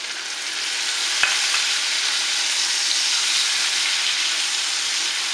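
Pork, onion and freshly added tomatoes sizzling in hot oil in a pan, stirred with a silicone spatula. A single sharp knock comes about a second in.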